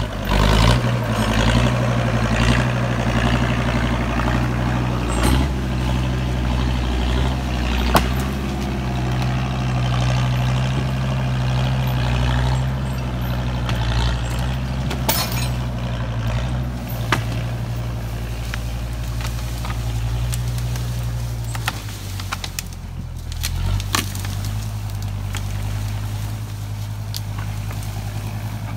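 Log skidder's engine running under load as it drags a log: a steady low drone with occasional sharp knocks. The engine note dips and settles a little lower about 22 seconds in.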